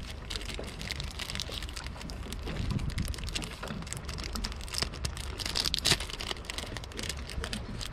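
Paper slip crinkling and crackling as it is handled, over a low rumble of strong wind buffeting the microphone.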